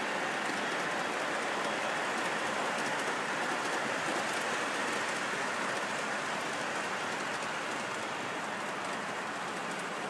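Model trains running on metal track: a steady whirring hiss of wheels and motors with faint fine clicking of rail joints.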